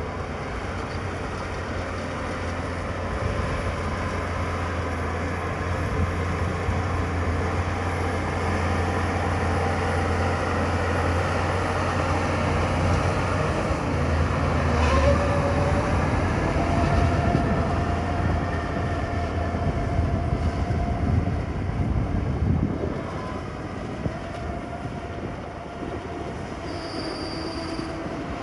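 Shantui crawler bulldozer working: its diesel engine runs with a steady low rumble while the steel tracks squeal in wavering tones.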